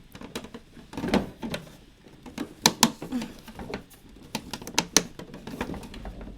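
Plastic model-kit parts knocking and clicking as they are forced together by hand, a run of sharp irregular clicks because the pieces are a very tight fit.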